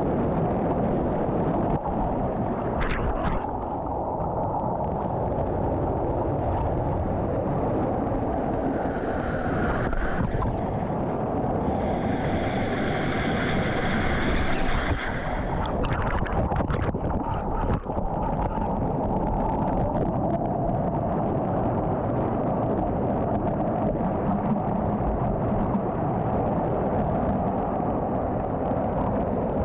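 Steady, muffled rush of falling mountain water from a waterfall.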